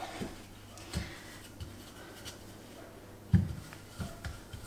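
A wooden rolling pin rolling out pastry dough on a floured benchtop, with a few soft thumps, the loudest about three seconds in.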